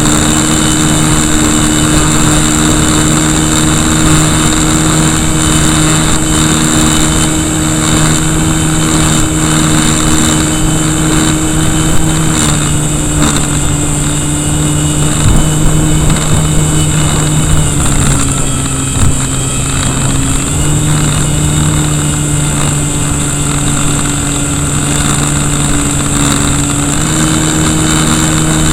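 The brushless electric motor (KV1100, 3S) and propeller of an RC Cessna in flight, heard right beside the motor: a steady propeller drone with a thin high whine, over wind rushing past the microphone. The pitch drops for a couple of seconds just past the middle as the throttle eases, then steps up again near the end.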